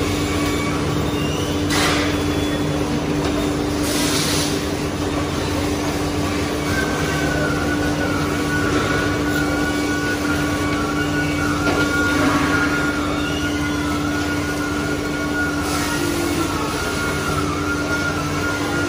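Steady hum and rumble of meat-processing-line machinery and plastic modular conveyor belts, with a constant low tone throughout. A few short hisses come and go, and a high steady whine joins about seven seconds in and stops shortly before the end.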